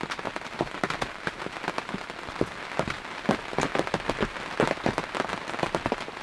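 Steady rain, its drops pitter-pattering in many irregular, sharp, close taps.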